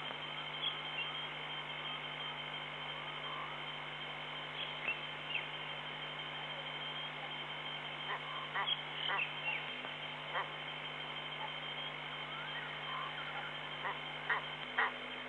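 Frogs calling at a waterhole at night: short, separate calls, bunched about halfway through and again near the end, over a steady hum.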